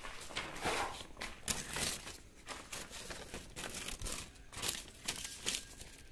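Paper crinkling and rustling in irregular crackles as a printed wiring-plan sheet is handled and spread open.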